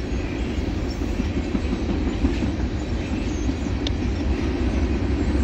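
Freight train of tank cars rolling past, a steady rumble of steel wheels on rail.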